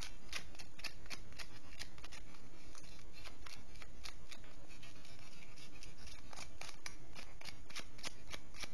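Quick, repeated scraping strokes, several a second, as the small metal contacts and battery terminals of a quartz wall-clock movement are scraped clean of rust and deposits so the current can reach the coil.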